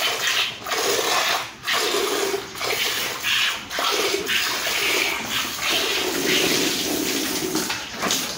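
Milk squirting from a cow's teats into a pail during hand milking, a steady stream of liquid noise broken into rhythmic spurts.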